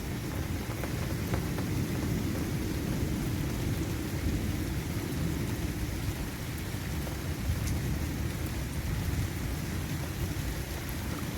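Steady low roar of a severe thunderstorm overhead, with light rain. It comes without strong wind at the ground, and the observer thinks the roar comes from something happening high in the atmosphere.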